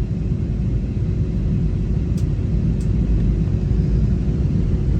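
Airliner cabin noise on final approach: a steady, loud low rumble of engines and airflow with a faint steady hum.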